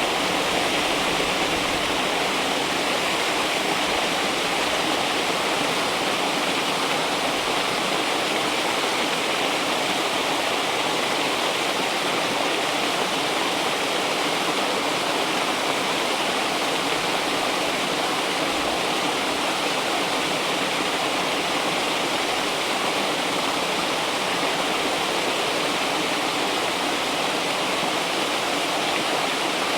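River water flowing and rushing steadily, an even, unchanging sound.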